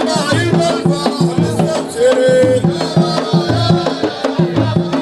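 Arabic wedding procession (zaffa) music: drums keep a steady, repeating beat under a pitched melody, with one note held for about half a second around two seconds in.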